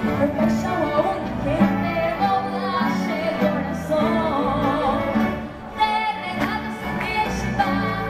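A girl singing a melody into a microphone over a youth orchestra of bowed strings and winds, playing live.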